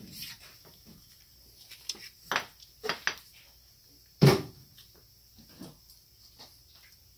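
Scattered small clicks and knocks of Mikuni carburetor fuel-pump parts being handled and set down on a workbench, with the loudest knock about four seconds in.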